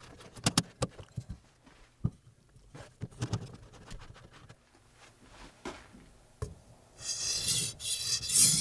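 Scattered clicks and knocks of a whetstone being handled and set into its stone holder, then from about seven seconds a katana blade stroked on the whetstone with a rough, gritty scraping.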